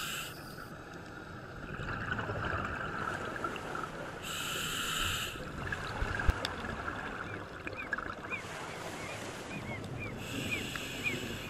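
Underwater sound heard through a dive camera's housing: a steady hiss, with a scuba diver's exhaled bubbles rushing out in two bursts of about a second each, some six seconds apart. One sharp knock a little past the middle.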